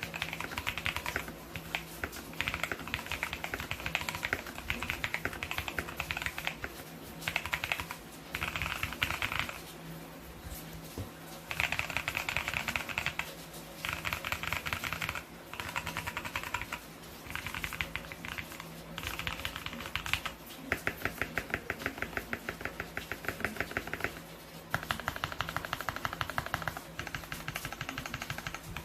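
Typing on a heavily modded Royal Kludge RK61 60% mechanical keyboard: runs of rapid keystroke clicks in bursts, broken by short pauses.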